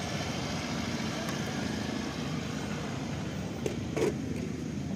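Steady engine and road noise of a vehicle moving past, the decorated passenger road-train crossing the lot. Two short knocks come about three and a half and four seconds in.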